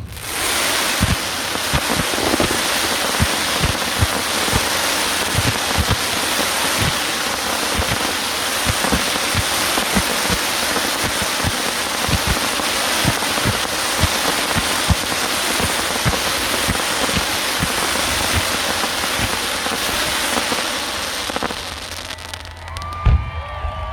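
Fireworks: a dense, continuous crackling like heavy rain, typical of crackle shells, with many low booms of bursting shells underneath. The crackling dies down near the end, and one loud boom follows.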